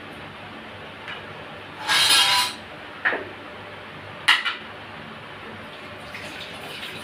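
Kitchen utensil sounds while thick custard is poured over fried vermicelli: a half-second scrape about two seconds in, then two sharp clinks about a second apart.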